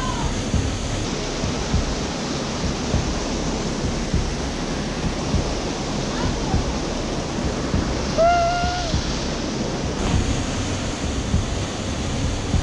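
Waterfall rushing steadily, with a person's short call about eight seconds in.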